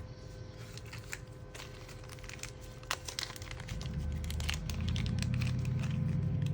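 Light clicks and crinkly rustling from handling laptop parts during reassembly, with a low rumble building about four seconds in.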